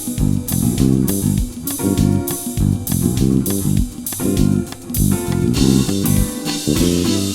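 Instrumental guitar improvisation, a lead guitar playing phrases over a bass guitar line, with a steady beat of sharp percussive hits a little under twice a second.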